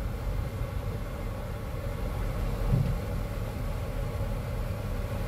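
Low, steady rumble inside a car's cabin as the car sits idling at a red light.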